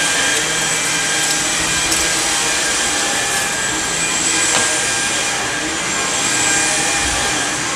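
Samsung Jet VS70 cordless stick vacuum running steadily on carpet. Its motor whine holds one high pitch over the rush of suction.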